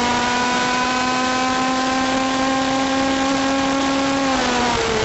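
A TaG racing kart's single-cylinder two-stroke engine at high revs, heard onboard. It holds a steady, slightly climbing pitch, then drops about four seconds in as the driver lifts off the throttle.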